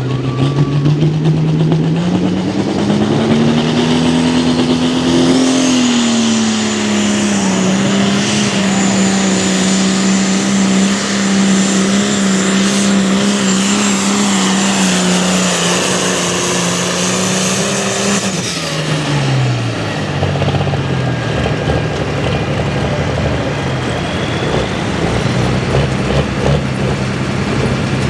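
Diesel pulling tractor under full throttle through a pull. The engine revs up about two seconds in and holds high, steady revs while dragging the weight sled for about twelve seconds, with a high whine above it. It then throttles back and drops to a lower run as the pull ends.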